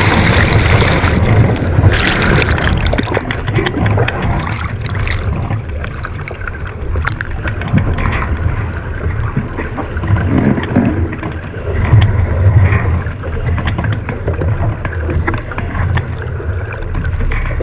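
Wind and water rushing aboard an 18ft skiff sailing at speed: a gusting low rumble of wind buffeting the onboard camera microphone, with a hiss of water and spray along the hull and a few small knocks.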